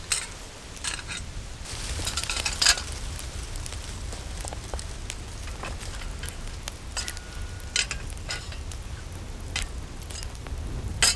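Wood fire crackling over glowing coals, with scattered sharp pops and metal clinks as a steel grate is set and adjusted over the fire; the densest run of cracks and clinks comes about two to three seconds in.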